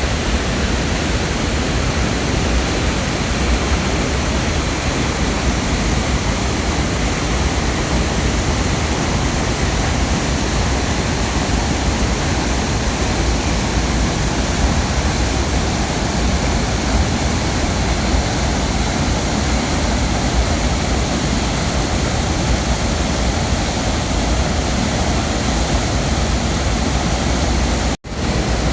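Waterfall's water rushing in a steady, dense roar with a deep low end, cut off for a split second just before the end.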